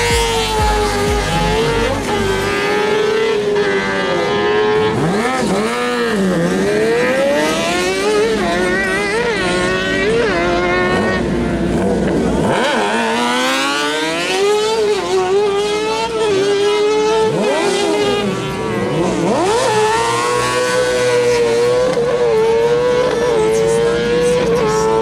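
Motorcycle-engined kart cross cars revving high at the start line and accelerating hard away, the engine pitch climbing and dropping repeatedly with each gear change. One launches right at the start and another about twelve seconds in.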